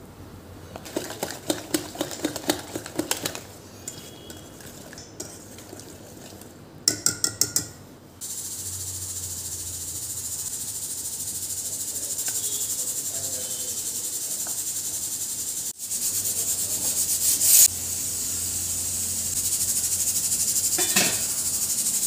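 Wire whisk beating idli batter in a stainless steel bowl, a quick run of metal clinks against the bowl, then a quick run of sharp taps about seven seconds in. After that a steady high hiss takes over, breaking briefly about two-thirds of the way through.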